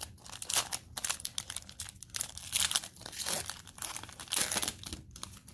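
Plastic wrapper of a Panini Mosaic cello pack of football cards crinkling and tearing as it is opened by hand, a dense run of irregular crackles and rustles.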